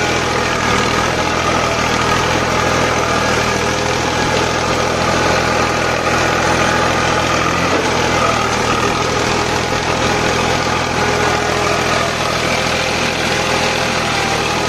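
Sonalika DI 750 tractor's diesel engine running steadily under load as it pulls a two-bottom mouldboard plough through the soil.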